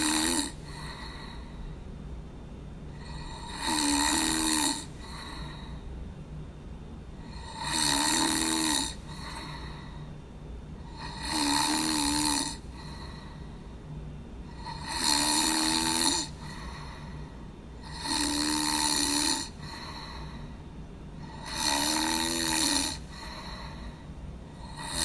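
A person snoring in a steady rhythm, about seven snores each lasting around a second, one every three and a half to four seconds, over a low steady hum.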